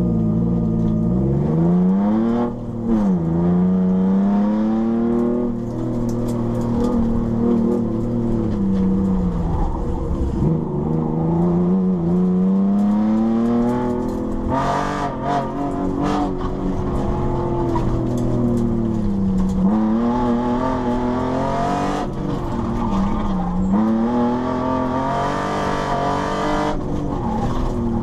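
Ford SVT Contour's 2.5-litre V6, heard from inside the cabin on an autocross run. It revs up hard off the start line, drops sharply in pitch at a shift about three seconds in, then rises and falls again and again as the driver accelerates and lifts for the corners.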